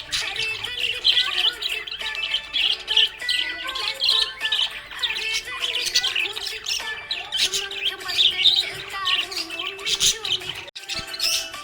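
Budgerigars chirping and warbling without pause, many quick overlapping chirps, with a brief break near the end.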